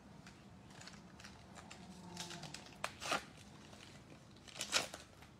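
Trading-card pack wrapper being torn open and crinkled by hand, in short crinkles: a couple about three seconds in and the loudest near the end.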